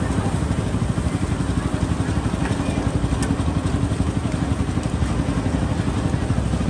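Small motorcycle engine running steadily with a rapid low pulsing.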